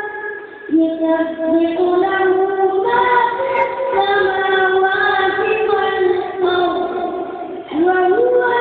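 A high voice singing a slow melody in long, drawn-out notes with ornamented turns between them, pausing briefly about half a second in and again near the end.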